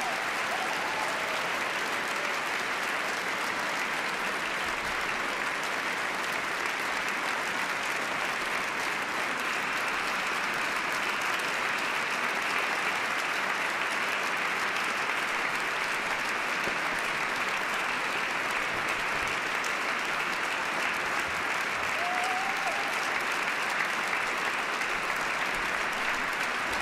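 A large concert audience applauding steadily after a song.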